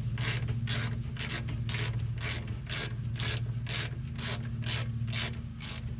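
Hand ratchet on the wheel-bearing bolts, its pawl rasping on each back stroke about twice a second as the bolts are snugged down. A steady low hum runs underneath.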